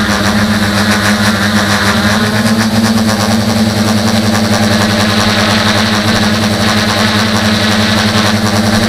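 Hobby tricopter's electric motors and propellers in flight, heard close up from the camera on board: a loud, steady buzzing hum with a strong low tone.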